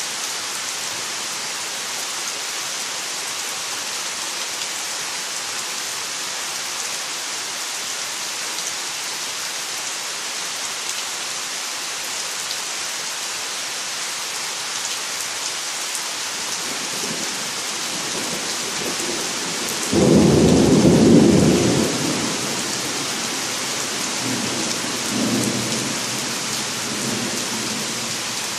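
Steady rain falling, with a gentle thunder clap about two-thirds of the way in: a sudden low rumble that lasts about two seconds, then rumbles again more faintly a few seconds later.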